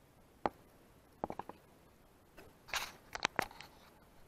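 Close handling noises: scattered sharp clicks and knocks, a quick cluster of three or four near the middle and a short rustling scrape followed by a few more clicks near the end, as a small pike is unhooked with a metal tool beside a plastic tackle box.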